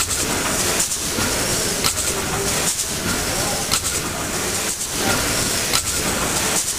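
The Bratch pumping station's vertical triple-expansion steam engine running slowly. It makes a steady mechanical clatter and hiss that dips in a regular beat about once a second as the rods go up and down.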